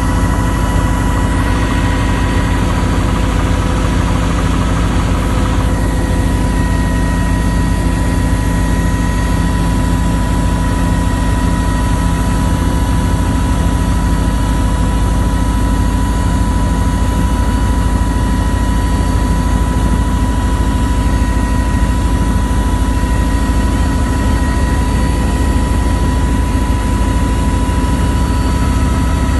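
Helicopter engine and rotor running steadily in flight, heard from inside the cabin: a loud low drone with a steady high whine over it.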